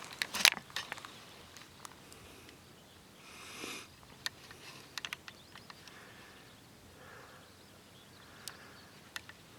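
Dry twigs crackling and snapping in sparse, irregular clicks, with a few louder crunches right at the start and a short hiss about three and a half seconds in.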